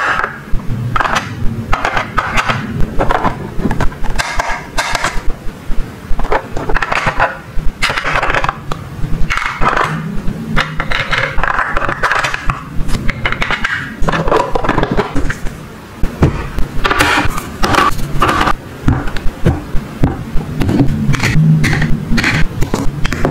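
Hard plastic toy food and toy kitchen pieces being handled: irregular clacks, taps and scrapes of plastic on plastic, including plastic tongs and a toy oven's parts.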